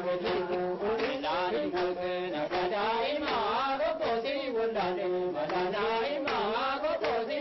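A group of women chanting a traditional song together, the melody rising and falling in short repeated phrases, with steady rhythmic hand claps.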